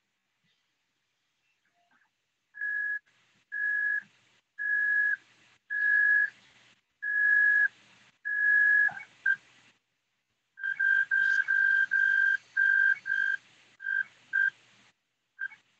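Desktop 3D printer's stepper motors whining at one steady high pitch during each move: about six separate half-second moves with short pauses between them, then, after a brief gap, a quicker run of shorter moves.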